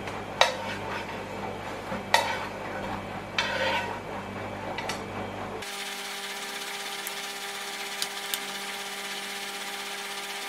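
Banana pancakes frying in a non-stick pan, with a few sharp clacks of a plastic spatula against the pan as they are turned in the first half. From about six seconds in, a steadier, brighter sizzle with occasional crackles as fresh batter cooks.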